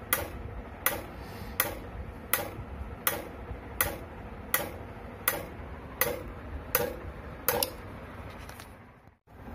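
Flovell F01D12 automatic fluid dispenser clicking once per dispensing pulse, a sharp click about every three-quarters of a second, matching its 0.03 s on and 0.7 s off timer setting. The clicks stop near the end.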